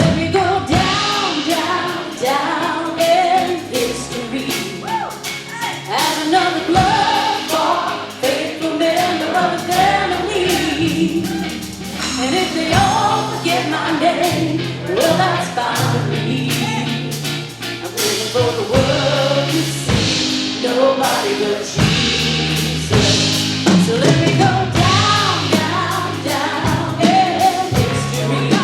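Live contemporary worship music: a band with drum kit and bass playing while singers lead a sung praise song.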